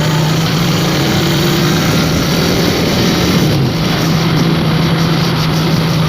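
A vehicle engine running at a steady pitch, with a brief dip about three and a half seconds in, over a steady rushing noise.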